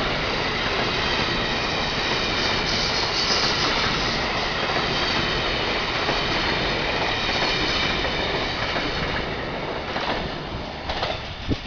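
Amtrak Northeast Regional passenger train rolling past at speed, its wheels on the rails making a steady rumble with a high-pitched whine over it. The sound falls away about ten seconds in as the last car goes by.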